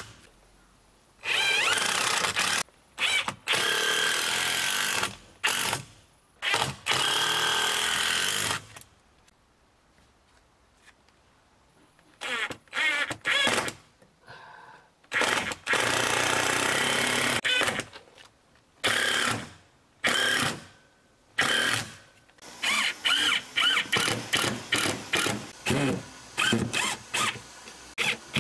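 Cordless drill-driver running in bursts of one to three seconds as it drives screws into wooden boards, with a lull in the middle. Near the end it comes in a string of quick short pulses.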